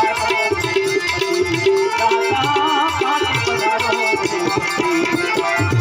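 Instrumental interlude of a Gujarati devotional bhajan. A wavering melody line runs over sustained reed tones, and a hand drum of the tabla or dholak kind keeps a steady rhythm.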